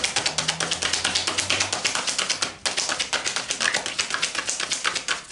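A deck of oracle cards being overhand-shuffled by hand: a rapid, even patter of card edges slapping together, about eight a second, with a brief pause about two and a half seconds in.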